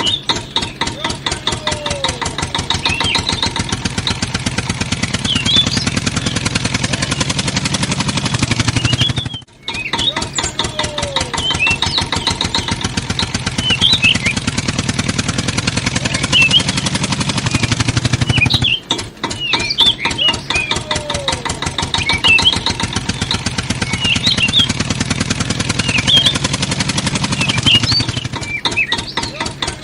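Tractor engine running with a steady, rapid chugging, from a looped recording that breaks off briefly and restarts about every nine and a half seconds; short high chirps recur at the same points in each repeat.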